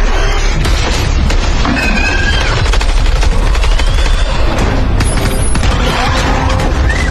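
Action film soundtrack: rapid gunfire and booms over music.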